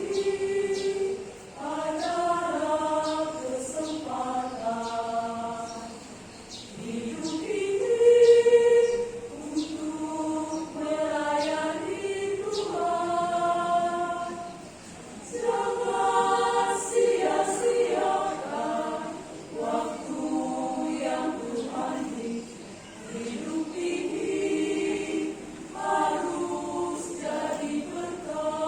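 Choir singing in several-second phrases, with short breaks for breath between them.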